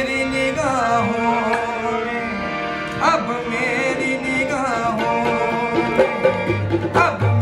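A man singing a Sufi devotional song in a gliding, ornamented voice over two harmoniums holding steady chords. Low drum beats join near the end.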